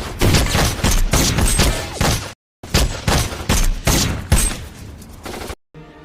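Film shootout gunfire: many shots in rapid succession, overlapping into a dense volley. It breaks off abruptly twice for a moment.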